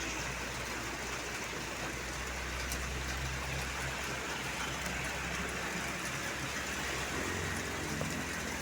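Road traffic: a vehicle engine's low, steady hum under an even hiss of road and wind noise, with no horn tune sounding.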